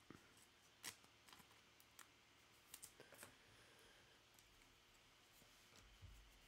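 Near silence with a few faint, scattered clicks and taps of trading cards being handled and shuffled through.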